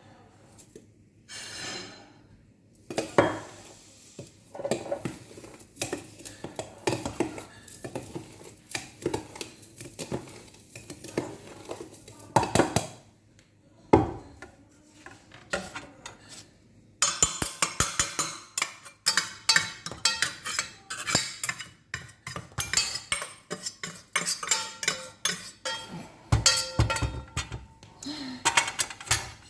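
Metal utensils and dishes clinking and knocking while ground coffee is being mixed, in scattered clinks at first and a dense, bright run of clinking in the second half.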